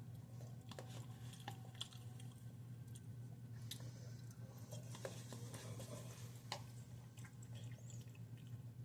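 Steady low hum with faint, scattered small clicks and light taps.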